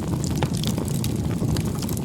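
Wood bonfire burning, with many small sharp crackles and pops scattered over a steady low rumble of the flames.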